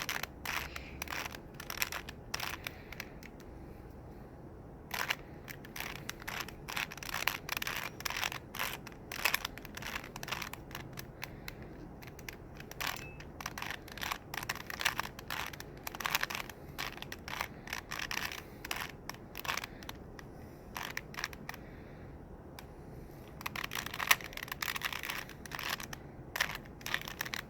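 A stiff-turning plastic Rubik's cube being turned by hand: quick runs of clicks and clacks as the layers rotate, with a few short pauses.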